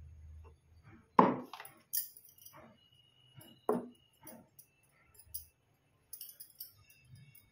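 Handling sounds of a small metal idol being dressed in a cloth garment: a few light knocks and clinks, the loudest about a second in, with soft cloth rustling between them.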